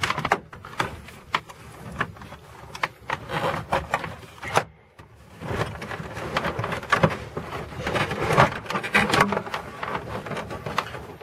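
Irregular clicks, taps and knocks of plastic interior trim being handled and pried loose in a car's cabin, with a short pause about halfway through.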